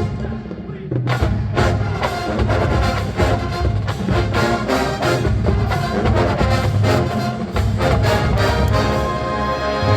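College marching band playing: a full brass section over the drumline, with a steady run of drum hits under sustained horn chords.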